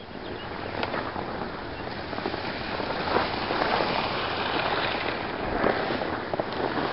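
Skis sliding and scraping over firm groomed snow: a steady crackling hiss with many scattered clicks, growing louder over the first second or two.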